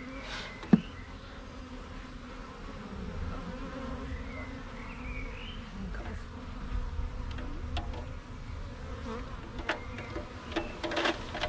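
Honeybee swarm buzzing steadily. A single sharp click sounds about a second in, and a few lighter ticks come near the end.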